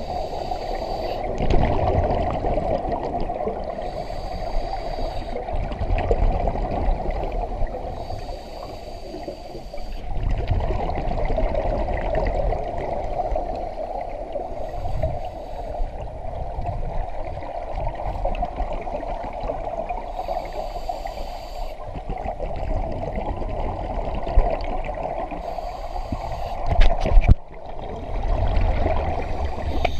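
Scuba diver breathing through a regulator underwater: a hiss on each inhale, every four to six seconds, between rushing, bubbling exhales. A few sharp knocks near the end.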